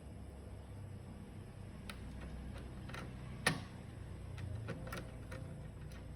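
Scattered small clicks and taps of laptop parts and screws being handled during disassembly, irregular, with one louder click about three and a half seconds in, over a faint low hum.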